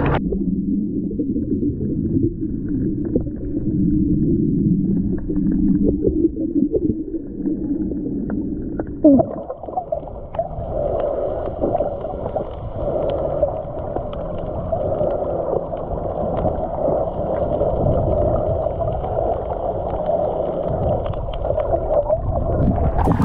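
Muffled sloshing and gurgling of seawater washing over an action camera held at the sea surface. About nine seconds in the camera goes under, and the sound changes to a steadier muffled underwater hum with faint bubbling.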